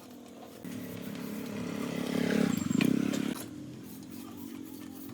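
A small engine running, growing louder over about two seconds and then cutting off abruptly.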